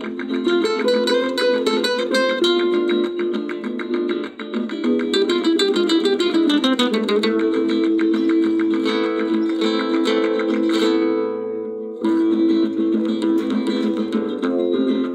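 Flamenco rumba played on an acoustic-electric guitar, amplified through a portable speaker: quick picked and strummed passages, a descending run about seven seconds in, held notes, then a brief dip and a sharp re-entry about twelve seconds in.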